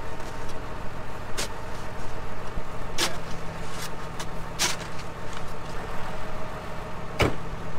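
Snow shovel scraping and chopping packed snow from around a pickup's front wheel, four or five sharp strokes a second or so apart, over a steady vehicle engine hum. A louder sharp thud near the end, as the truck's door shuts.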